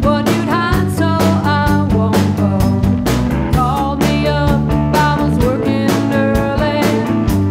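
Live rock band playing: a woman singing over an electric keyboard, electric guitar and drums, with a steady drum beat.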